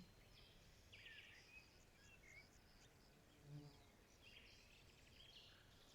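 Faint forest ambience: a few soft, high bird chirps and calls over a low hiss, with one brief soft low sound about midway.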